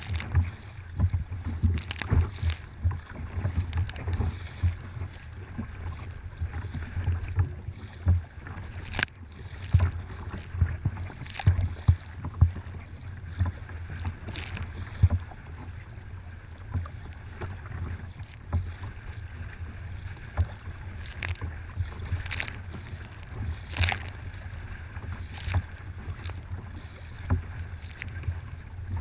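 Wind buffeting the microphone with a heavy low rumble, while choppy water slaps and splashes against a kayak's hull every second or few seconds.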